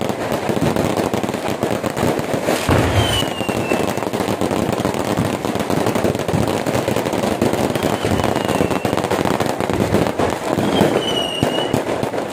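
Aerial fireworks going off in a dense barrage: continuous crackling and popping of bursting stars, with a few short falling whistles through it.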